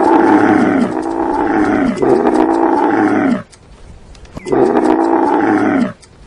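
A large animal calling: a string of long, loud calls, each falling in pitch, the first few nearly back to back, then a break of about a second before one more.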